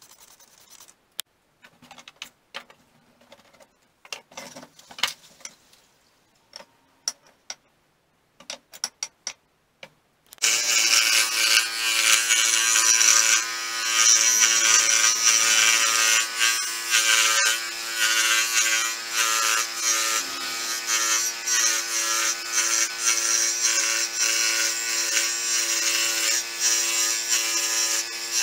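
Scattered light clicks and taps of handling, then about ten seconds in an electric power tool starts abruptly and runs steadily under load on the workpiece.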